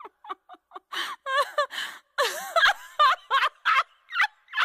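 Comic laughter sound effect: a rapid string of short, high-pitched giggles with gaps between them.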